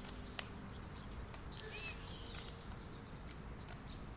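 Faint taps of a toddler's sandals walking on asphalt, with a sharp click near the start and a brief high chirp a little under two seconds in.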